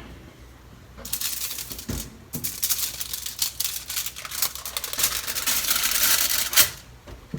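Aluminium foil crinkling and crackling as it is handled, starting about a second in and stopping abruptly shortly before the end, with a couple of light knocks along the way.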